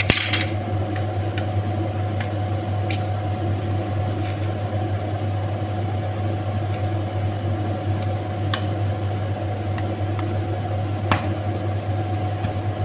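A steady low mechanical hum, with a few light ticks and knocks of a wooden spoon stirring rice in a cooking pot.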